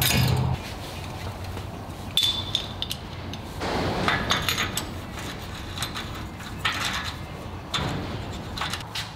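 Light metallic clinks and knocks of parts being handled at a truck's rear wheel hub, scattered a second or so apart, one with a brief high ring. A steady low hum cuts off about half a second in.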